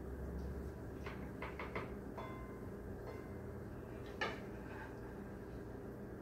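A serving utensil clicking and scraping against a frying pan as pancake pieces are lifted out onto a plate: a few light clicks about a second in, then one sharper knock about four seconds in.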